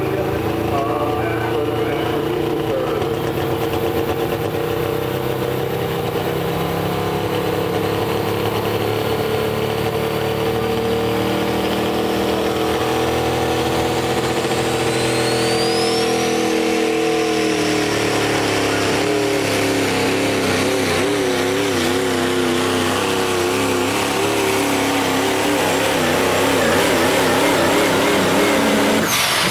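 Diesel pulling truck's engine held at high revs on the line, with a turbo whine rising about halfway through. It then runs under load pulling the sled, its pitch wavering and the sound growing louder near the end.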